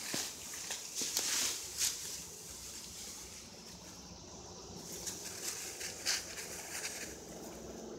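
Leafy cut branches and brush rustling as they are grabbed, dragged and piled, with a few sharper swishes about a second and two seconds in and again near six seconds.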